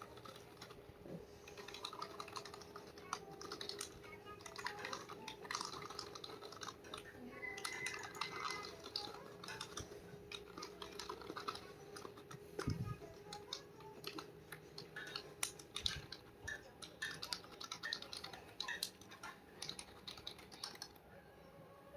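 Dell KB216 USB keyboard being typed on: a fast, irregular run of plastic key clicks, over a faint steady hum.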